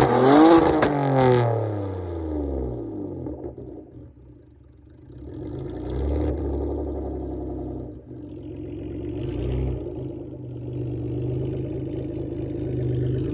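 Straight-piped, catless 2015 Ford Taurus Limited exhaust with a pops-and-bangs tune. It revs and crackles at the start, then the revs fall away over a couple of seconds. Two brief swells in engine sound follow before it settles to a steady idle.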